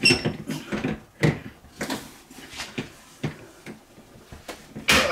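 Plastic clicks, pops and knocks as a replacement ice maker module is pushed and worked into its mounting in a cold freezer compartment: several sharp, separate hits, the loudest at the start and another near the end. Cold plastic popping like this is what the repairer fears is the part cracking.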